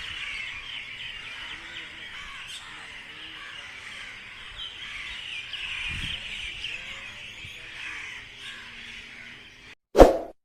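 Many small birds chirping and twittering together in a dense, steady morning chorus, which stops just before the end and gives way to a sudden loud clang.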